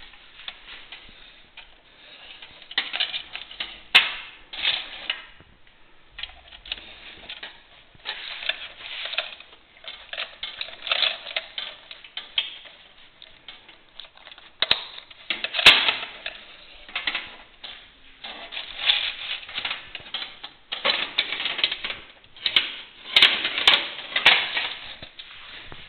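Handling noise: bursts of rapid light clicking and rattling, each lasting about a second, with a few single sharp clicks, as the steel armour and the camera are handled.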